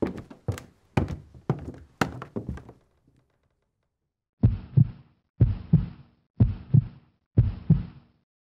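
Footsteps going down stairs, about two a second, stopping about three seconds in. After a short pause, a heartbeat sound effect: four lub-dub double thumps about a second apart.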